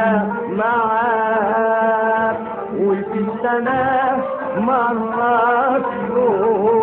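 Song in a Middle Eastern style: a voice singing long, ornamented notes that glide and waver, over a steady sustained accompaniment.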